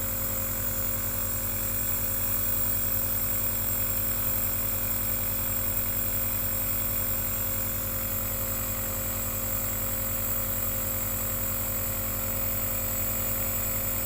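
Omron C28 compressor nebulizer running: a steady motor buzz with an even hiss of air.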